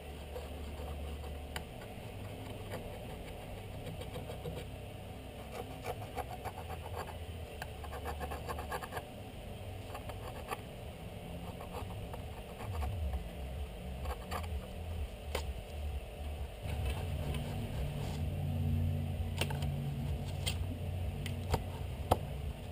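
Pencil scratching on paper while a crook knife's blade is traced, over a low steady hum, with a sharp knock near the end.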